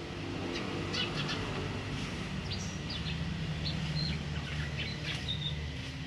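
Common hill myna giving a scattering of short, high chirps and clicks, over a steady low rumble.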